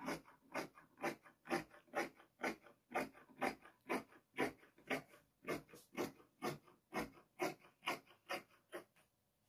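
Fabric scissors snipping through black abaya cloth, cutting an 11 cm strip off along the edge: a steady run of crisp snips, about two a second, that stops just before the end.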